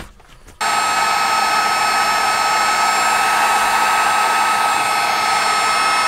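Electric heat gun switched on about half a second in, its fan blowing steadily with a constant high whine as it shrinks heat-shrink tubing over a crimped copper cable lug.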